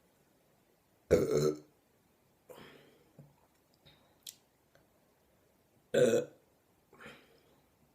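A woman burping loudly twice, about a second in and again about six seconds in, each burp about half a second long, with fainter short burps after each. The burps come from gas brought up by drinking carbonated Sprite.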